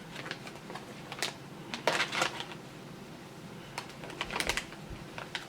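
Plastic dog-treat wrapper crinkling and crackling in the hands as it is pulled at to tear it open, without giving way. Scattered small crackles, with two louder bursts about two seconds in and again near the end.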